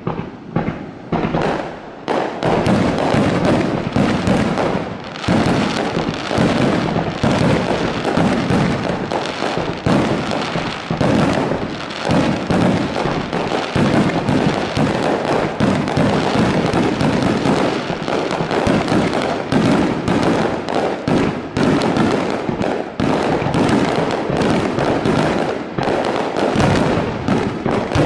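Aerial firework shells bursting close overhead in a rapid barrage of booms. A few separate bursts come in the first two seconds, then they run together with almost no gap.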